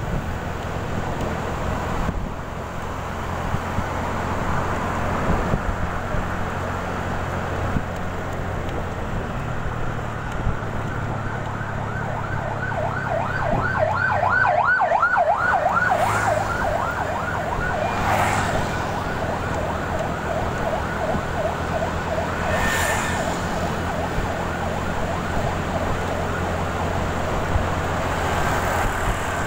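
A vehicle siren in a fast rising-and-falling yelp, coming in about ten seconds in, loudest soon after, and fading out well before the end. Under it is the steady noise of the motorcycle ride: engine, tyres and wind.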